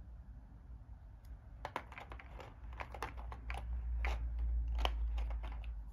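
Packaging crinkling and clicking as plastic miniature figures are unpacked by hand: an irregular run of sharp crackles starting about a second and a half in, over a low handling rumble.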